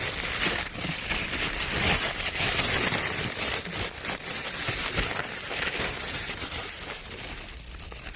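Packaging being handled, a continuous irregular crinkling and rustling that eases off toward the end.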